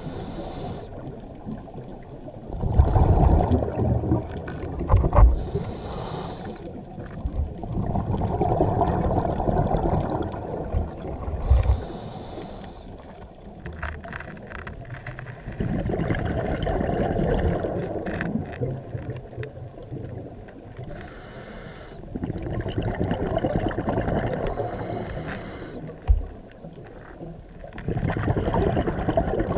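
A scuba diver breathing through a regulator underwater: short hissing inhalations alternate with long, rumbling bursts of exhaled bubbles, several slow breaths in a row.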